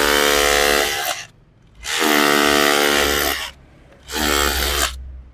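DeWalt DCH133N cordless SDS-plus rotary hammer in hammer-only mode, chiselling concrete with a pointed chisel bit. It runs in three loud bursts, stopping and restarting with about a second's gap between them.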